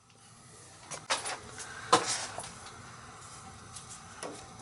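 Several short clicks and knocks, the loudest about two seconds in, over a faint steady background hum.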